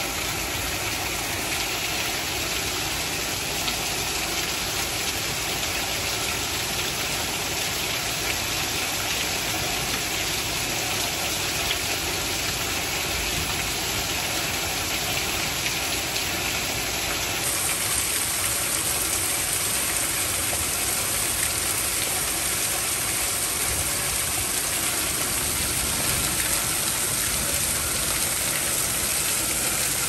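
Heavy rain pouring steadily, with runoff streaming off the edge of a roof that has no gutters.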